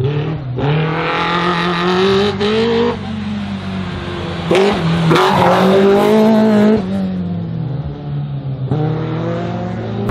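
Race car engine on an autoslalom run, revving hard and dropping back several times as the throttle is opened and closed between the cones.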